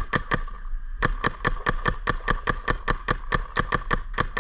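Paintball marker firing rapid strings of shots: a few pops, a short pause just under a second in, then a steady stream of about eight shots a second.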